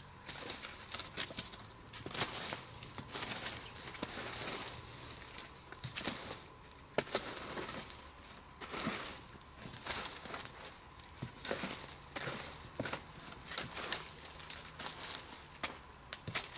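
Wood campfire crackling and popping as its burning logs and embers are raked and pushed with two wooden sticks, spreading it out into a long fire. Irregular sharp cracks, knocks and scrapes of wood on wood over a steady hiss.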